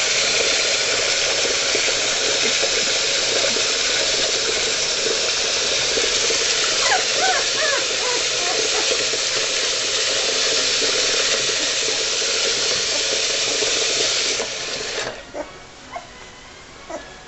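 Tap water running steadily during a puppy's bath, shutting off abruptly near the end. A few short high whimpers from the puppy come about seven seconds in, and a few small knocks and drips follow once the water stops.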